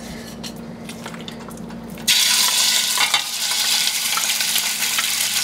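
Raw chicken pieces going into hot olive oil in a frying pan: after a few light knocks, a loud sizzle starts suddenly about two seconds in and carries on steadily.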